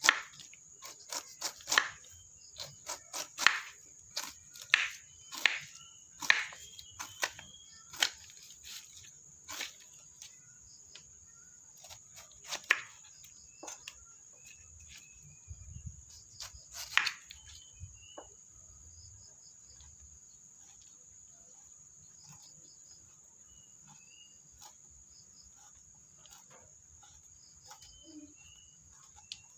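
Steady high-pitched trill of crickets, with a run of sharp irregular clicks and snaps through the first half that then thin out, and a few short bird chirps.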